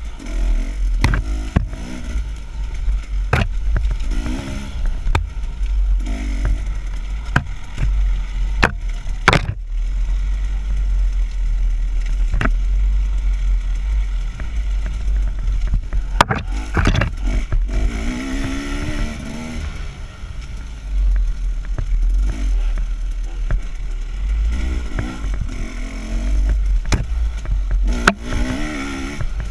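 KTM dirt bike engine heard from on board, its revs rising and falling as it is ridden along a rough wooded trail, with a heavy low rumble and frequent sharp knocks and rattles as the bike hits bumps and brush.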